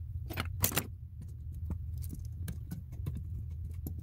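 Screwdriver tightening a terminal screw on an electrical receptacle: a run of small metallic clicks and scrapes, two sharper ones about half a second in, over a steady low hum.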